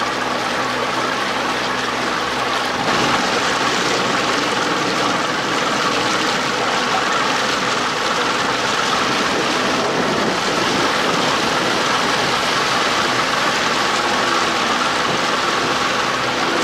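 Boat under way: a two-stroke outboard motor running steadily, mixed with a steady rush of water and wind noise.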